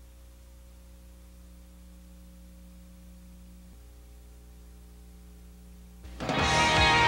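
Low steady electrical hum with a few faint steady tones. About six seconds in, loud rock music with electric guitar starts abruptly.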